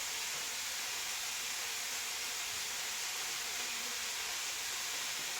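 Steady sizzling hiss of beef goulash frying in a pot on the stove.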